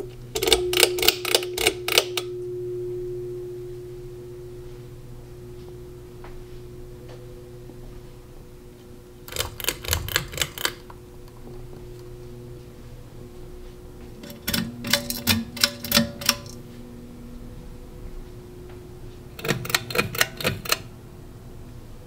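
Four bursts of rapid sharp clicking, several clicks a second, over the steady low hum of running ceiling fan motors. The hum's pitch shifts as the clicking starts.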